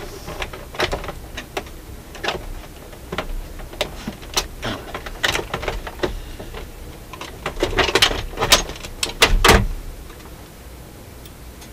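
Scattered clicks and light metallic clatter from a Dual 1228 turntable's mechanism being handled, with a louder run of knocks and a thump near the end as the turntable chassis is lifted out of its plinth.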